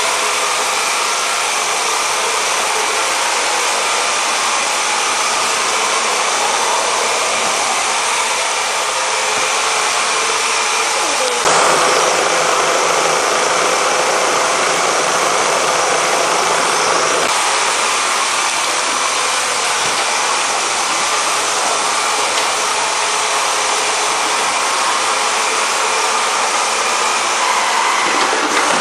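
Roomba robot vacuum running: a steady whirring hiss from its motor and brushes. It jumps a little louder and brighter about a third of the way in.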